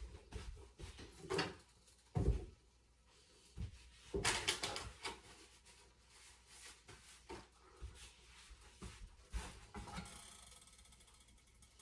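Kitchen handling noises: a few scattered knocks and clatters, the loudest about two and four seconds in, as a drawer is opened and closed and a metal spatula is fetched.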